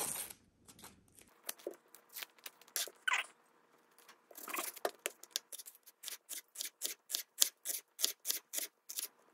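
Knife slicing an onion on a cutting board. A few scattered knocks come first, then from about halfway there is a steady run of cuts, roughly three a second.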